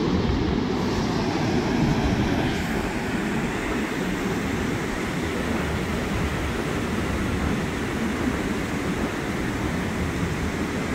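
Ocean surf breaking and washing up a sandy beach: a steady, low rumbling wash with no distinct single wave crashes.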